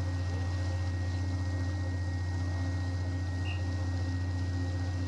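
Steady low hum of a patrol ship's machinery, unchanging throughout, with a faint steady high tone above it.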